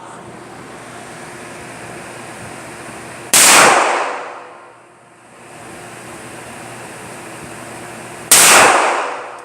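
Two gunshots on an indoor range, about five seconds apart, each a sharp crack that dies away over about a second in echo off the walls. A steady hiss runs underneath.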